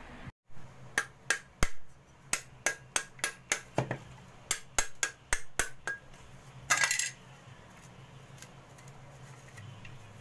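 A mature coconut being struck to crack it open: about sixteen sharp knocks, three or four a second, with a short pause partway through. A brief burst of noise comes about a second after the last knock.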